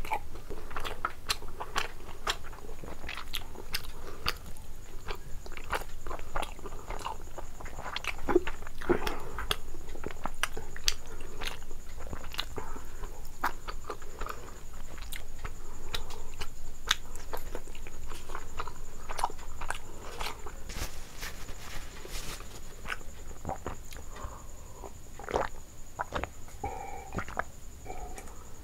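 Close-miked mouth sounds of eating: wet chewing and lip smacking on soft, syrup-soaked rasgullas, a steady run of small clicks and smacks. Near the end come sips and swallows of a cold drink.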